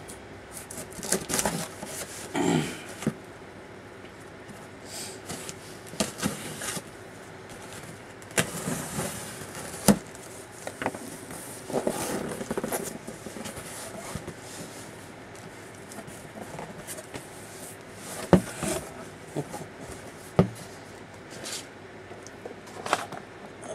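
A knife cutting the packing tape on a cardboard shipping box and the box being opened: scattered scrapes, rustling and knocks of cardboard and packing material being handled, with sharp knocks about ten and eighteen seconds in.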